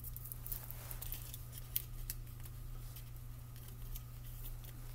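Light handling noises of aluminium foil tape being worked by hand: scattered small clicks and crinkles, with one sharper tick a little under two seconds in, over a steady low hum.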